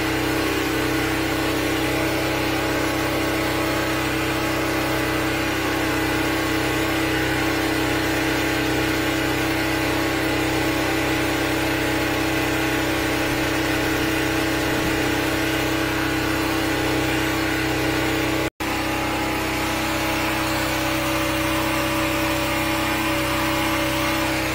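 The 13-horsepower engine of a high-pressure sewer jetter running steadily under load, with water jetting through the hose into a grease-clogged drain. The sound drops out for an instant about eighteen seconds in.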